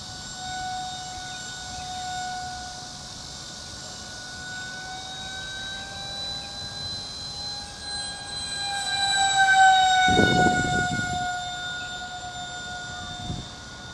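Radio-controlled model airplane's motor giving a steady high whine. The pitch rises and it grows louder as the plane comes closer, then the pitch drops quickly as it passes about nine to ten seconds in.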